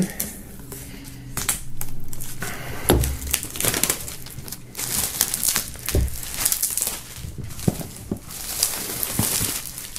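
Clear plastic shrink-wrap being slit and pulled off a large box, crinkling and crackling irregularly throughout, with a couple of dull bumps as the box is handled, about three and six seconds in.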